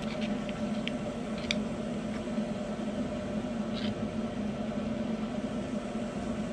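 Steady low hum of a running appliance or fan in the room, with a few faint clicks as small parts are handled.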